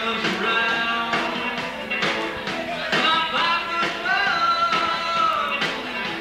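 Live rock-and-roll band playing electric guitars and a drum kit, with a steady beat of about two hits a second. A high lead line holds a long, bending note in the second half.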